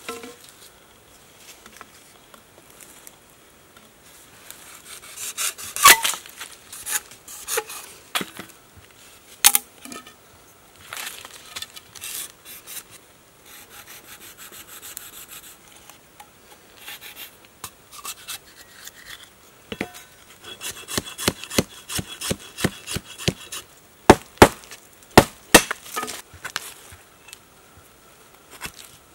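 Machete blade chopping and cutting green bamboo against a log: scattered sharp cuts, then a quick run of chops, about four a second, in the second half.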